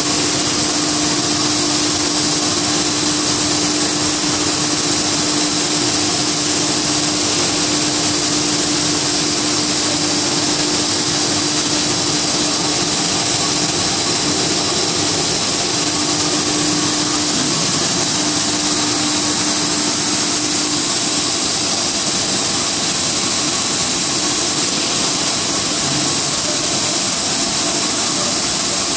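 PP/PE film pelletizing line running, with its extruder, compactor and feed belt under way. The machinery makes a steady, loud drone: a constant hum with a high hiss over it.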